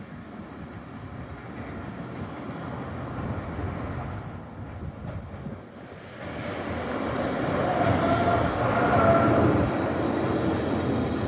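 NGT8D eight-axle low-floor articulated tram running past, its rumble growing louder over the second half. A steady whine rides over it at its loudest, near the end.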